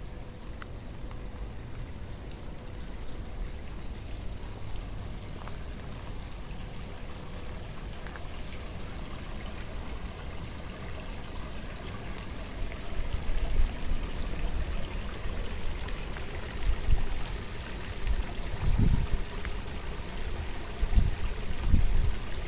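Steady trickling and splashing of a small waterfall spilling over rocks into a koi pond. From about halfway on, irregular low rumbling bumps come and go over the water sound.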